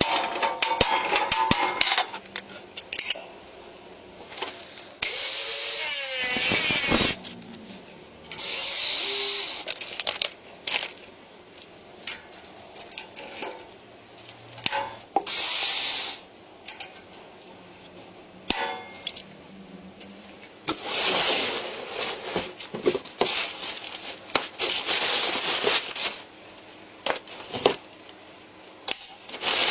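Tool work on a build: repeated bursts of rasping noise, each one to two seconds long, with small clicks and clinks between them.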